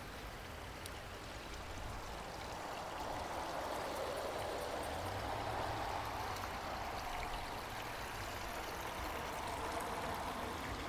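Small creek trickling steadily over rocks.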